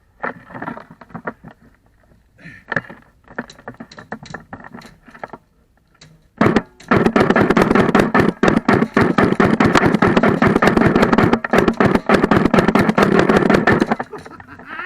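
Airsoft gun firing: scattered single shots and clicks, then about seven seconds of continuous rapid full-auto fire, a dense stream of shots with a steady buzz, that stops abruptly.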